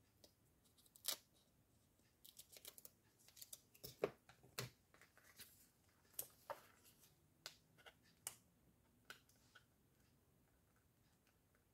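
Quiet paper and tape handling: scattered small clicks and short rustles as foam double-sided tape with a red liner is put on a small paper circle and its backing peeled off. The sharpest clicks come about a second in and around four seconds in, then they thin out to occasional ticks.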